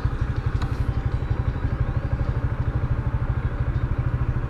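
Motorcycle engine idling while stopped at a traffic light: a steady, rapid low pulsing.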